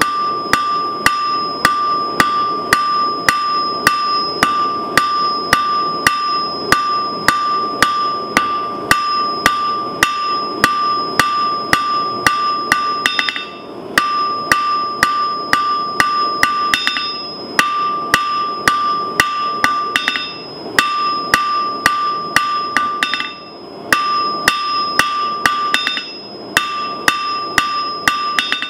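Blacksmith's hand hammer drawing out a thin bar of hot steel on an anvil: a fast, steady run of blows, about three a second, with the anvil ringing on a high note between them. The hammering stops briefly every few seconds, and the ring drops out with it.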